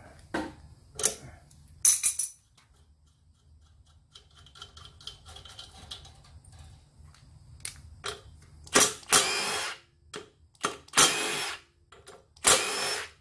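Cordless power driver spinning out the cylinder-head bolts of a small air compressor, in several runs of about a second each in the second half. Before that come a few sharp clicks and knocks of tools on the metal head.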